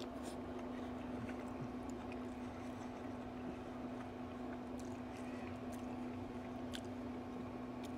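Faint chewing and wet mouth clicks from someone eating a bite of bacon-wrapped food, over a steady low hum.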